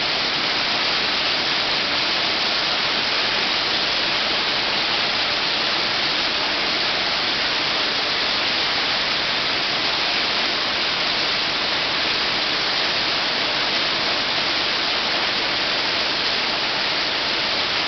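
Water-rain effect, a curtain of water about 12 metres long falling from overhead, making a steady, even hiss of falling water.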